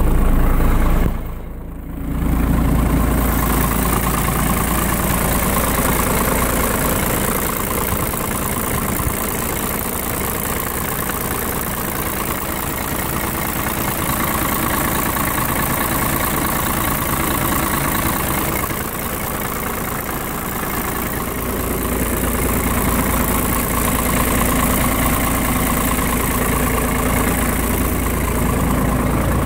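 Ford F800's 7.8-litre inline-six diesel idling steadily, its level dipping briefly about a second and a half in.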